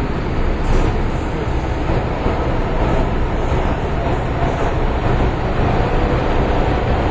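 MTR M-Train metro car running through a tunnel, heard from inside the carriage: a steady, loud rumble of wheels and running gear.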